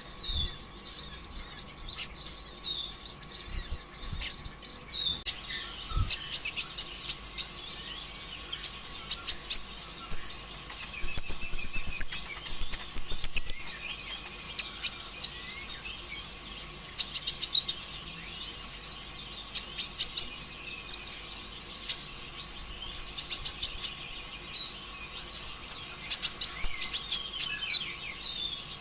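Kolibri ninja (konin ijoan) sunbird singing hard: rapid high chirps and fast rattling trills in bursts, busiest near the middle and again near the end. A faint steady hum runs underneath.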